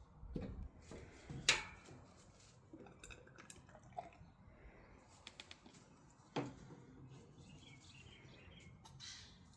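Faint handling noises as tubeless tire sealant is squeezed from its plastic bottle into the tire through the valve stem: scattered small clicks and two sharper knocks, about a second and a half in and again about six seconds in, with faint squeaky chirps near the end.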